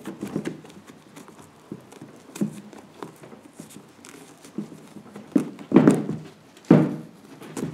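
A suede sneaker's metal side zipper worked by hand: scattered light clicks and handling noises, with two louder rubbing noises about six and seven seconds in.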